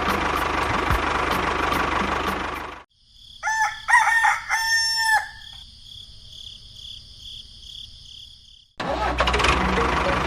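Steady small-engine noise cuts off suddenly, and a rooster crows once, about half a second later. A steady high whine hangs behind the crow. The engine noise cuts back in suddenly near the end.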